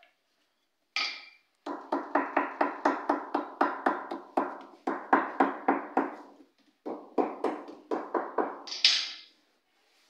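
A hammer striking a laminated wooden panel in quick, even blows, about four a second, each with a ringing tone. The blows come in two runs with a short break past the middle, after a single blow about a second in.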